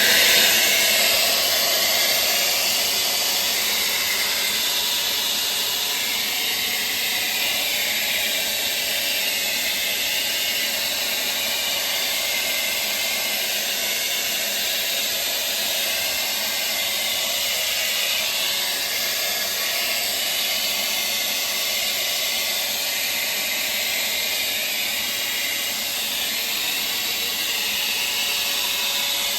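Handheld hair dryer on its hot setting blowing steadily, a continuous hiss with a faint steady whine from its fan motor.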